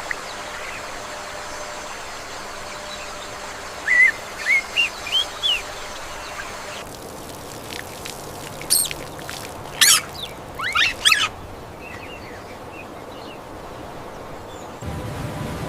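Birds chirping in two short runs of quick rising calls over a steady hiss of running water. Near the end a louder, lower rushing noise comes in.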